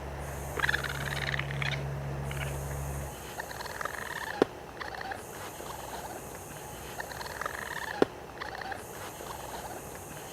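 Raccoon calling: three or four short fluttering, trilling calls, with two sharp clicks between them. A low hum runs under the first few seconds.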